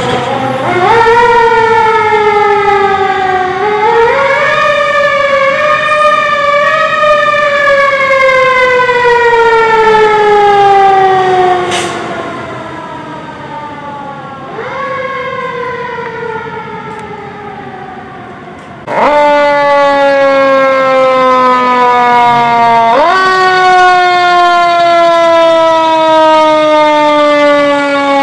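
Fire engine siren wailing, its pitch sweeping up quickly and then falling slowly over several seconds, again and again. About two-thirds of the way through it grows suddenly louder.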